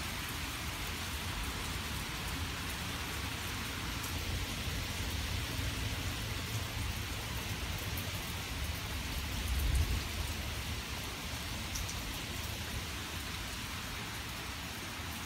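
Steady rain falling in a nighttime thunderstorm, with a low rumble of thunder that swells about ten seconds in.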